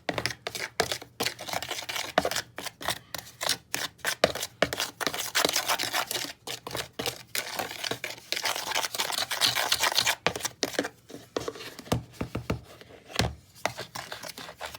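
A tablespoon stirring dry colored sand and cornstarch in a container: quick, gritty scraping strokes that thin out after about eleven seconds.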